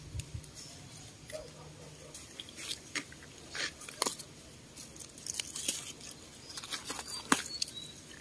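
Crisp snapping and leaf rustling as Malabar spinach shoots are pinched off by hand, an irregular string of sharp clicks that thickens after the first couple of seconds.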